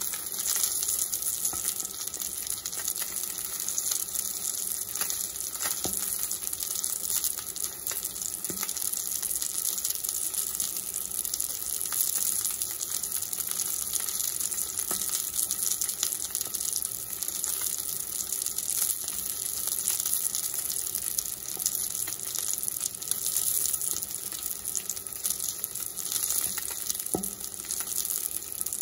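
Salmon fillet sizzling in hot oil in a cast-iron skillet: a steady high hiss with a few scattered pops.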